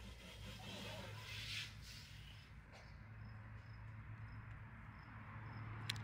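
Faint insect chirping in an even rhythm, about three short high chirps a second, over a steady low hum, with a brief hiss about a second and a half in and a click near the end.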